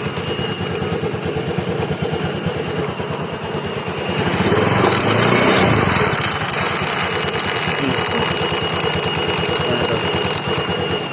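Honda Scoopy FI scooter's single-cylinder engine running on the stand, revved up about four seconds in and then let back to idle. On throttle release it makes a strange crackling noise near the CVT, which is actually caused by a stick of wood lodged against the wheel, not by the CVT.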